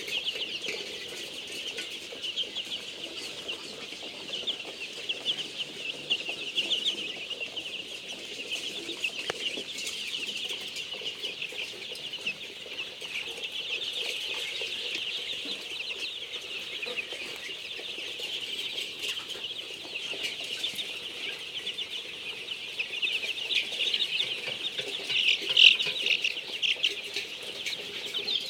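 A flock of Golden Misri chickens calling: a continuous chatter of many overlapping high-pitched calls, with a few louder calls near the end.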